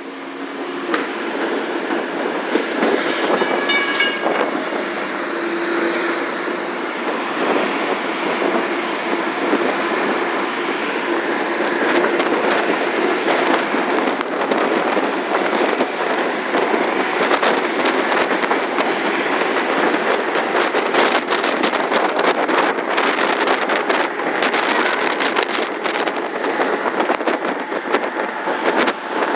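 Commuter train running along the track, heard from inside a coach at an open window: a steady rush of wheel and wind noise. Dense clicking and rattling sets in over the second half.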